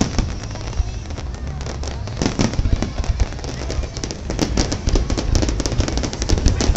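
Fireworks going off: a steady run of bangs and crackles from aerial bursts, coming thicker and louder in the second half.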